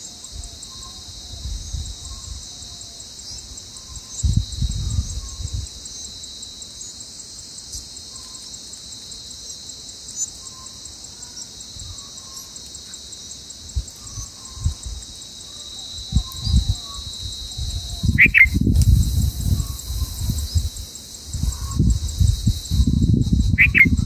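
Steady high-pitched insect chorus, with small bird chirps repeating every second or so and two brief, higher bird calls late on. Irregular low rumbling comes and goes, heaviest in the last few seconds.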